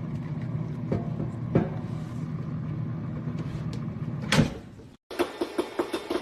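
Steady low mechanical hum, like a motor or vehicle running, with a few light knocks and one loud thump about four and a half seconds in. It then fades out and gives way to rapid repeated clicking near the end.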